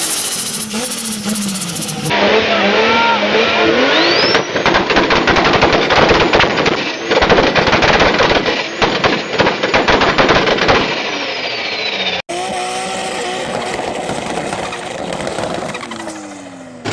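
Turbocharged car engines revving, heard in three clips cut one after another. In the middle clip a turbo whistle rises, then comes a long run of rapid fluttering chatter typical of turbo flutter (compressor surge) as the throttle comes on and off, and the whistle falls away near the end.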